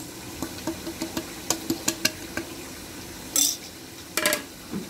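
A metal spoon clicking and tapping against a stainless steel cup while flour is spooned in, with a short scrape about three and a half seconds in and a quick cluster of clatters near the end.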